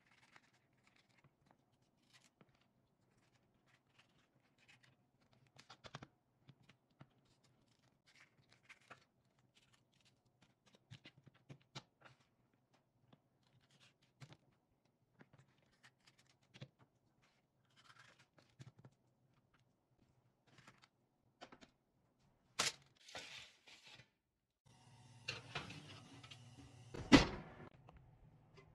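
Kitchen knife cutting red bell peppers on a wooden cutting board: scattered faint taps, scrapes and clicks of the blade on the board. Near the end a steady low hum comes in, with one loud clank.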